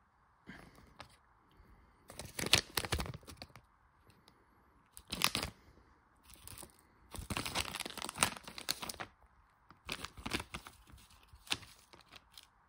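Chocolate wrapper crinkling in repeated bursts as a cat bats at it, each burst lasting up to about two seconds.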